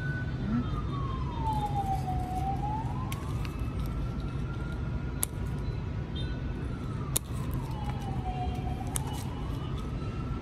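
A siren wailing, its tone holding, then slowly falling in pitch and rising back, twice, over a steady low rumble. A few sharp clicks come through in between.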